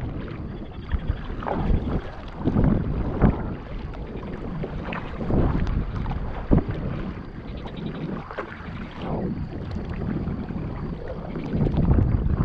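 Kayak paddle strokes swishing and splashing in the water at an uneven pace, roughly one every second or so, with wind rumbling on the microphone.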